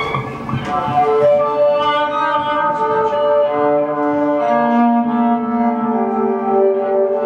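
Live acoustic ensemble playing slow, overlapping held notes on wind instruments and bowed strings, with a low sustained note entering about halfway through.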